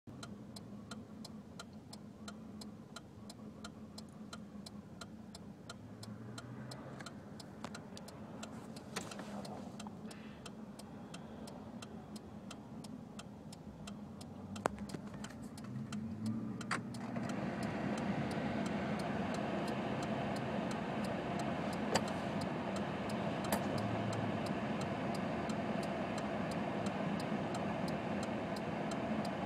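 2005 Ford F-150's engine running at a rough idle, with a steady, even ticking throughout; about 17 seconds in it grows louder and fuller. This is the rough-idle, hard-to-start condition that comes and goes on this truck.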